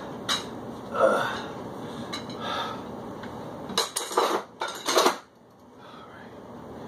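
Metal dumbbells clinking during a set, then several sharp metallic clanks about four seconds in as they are set down.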